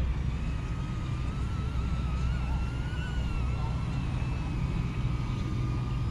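Quadcopter drone's propellers whining at a steady, slightly wavering pitch, over a low rumble of wind on the microphone.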